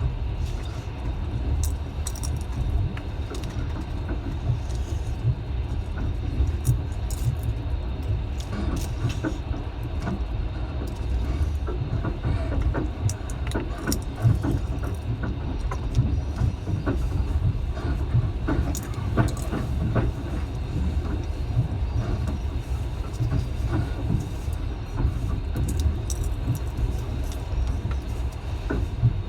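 Passenger train running along the track: a steady low rumble of wheels and carriage, with scattered clicks and rattles.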